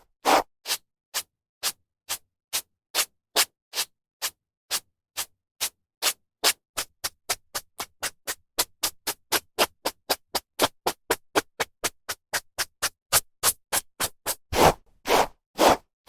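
Hairbrush strokes through hair, short brushy swishes repeated in an even rhythm. They speed up to about three or four a second in the middle, then give way to a few longer, louder strokes near the end.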